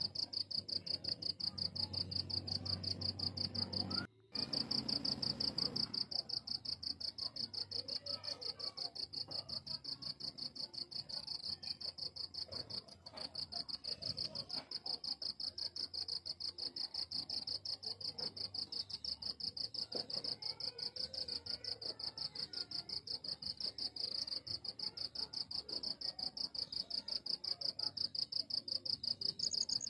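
Cricket trilling steadily in a fast, high-pitched pulsing trill that cuts out briefly about four seconds in.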